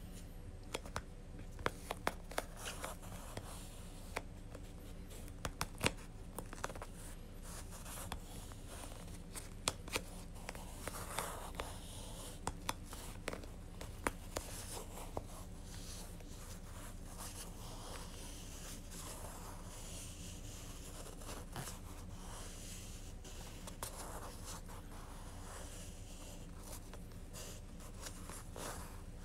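White acrylic yarn being wound by hand around a baseball: soft scratching and rubbing of the strand sliding over the ball and under the fingers, with scattered small clicks and taps in the first half.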